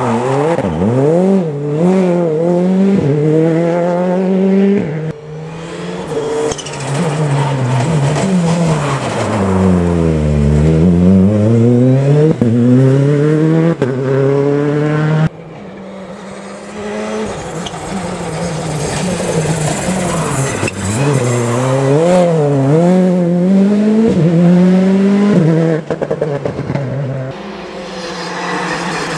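Citroën C3 R5 rally car's 1.6-litre turbocharged four-cylinder engine, driven hard in two passes. The revs rise and fall repeatedly through gear changes and braking. About ten seconds in, the engine note drops steeply and then climbs again, and an abrupt break about halfway marks the start of the second pass.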